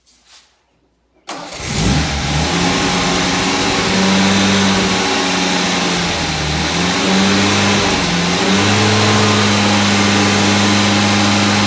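Freshly rebuilt MG B-series 1800 four-cylinder engine starting about a second in, its revs rising and falling for several seconds, then held at a steady raised speed for cam break-in.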